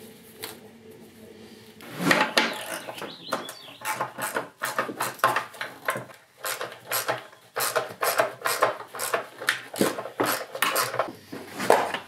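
Hand socket ratchet clicking in quick, repeated strokes as it works the 12 mm bolts of a golf cart's plastic air box. The clicking starts about two seconds in.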